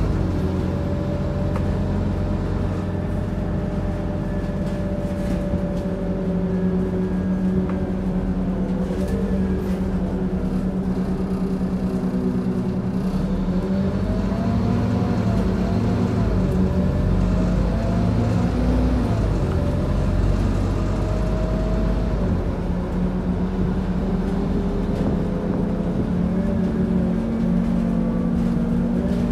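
Scania OmniCity diesel bus running and moving through traffic, heard from inside the passenger saloon: a steady low engine drone with whining tones that rise and fall in pitch as the bus speeds up and slows down.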